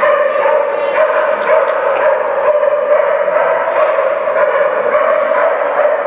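Dogs barking over and over in quick succession, over a steady hum.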